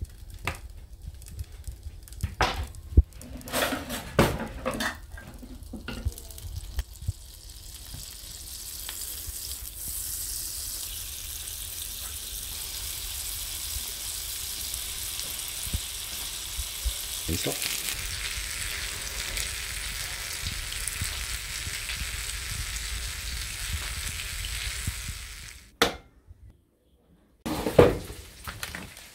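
Butter sizzling and spitting in a frying pan as two breaded patties fry in it. A few knocks and clicks come in the first seconds. Then the sizzle builds into a steady hiss that cuts off suddenly near the end, followed by a couple of knocks.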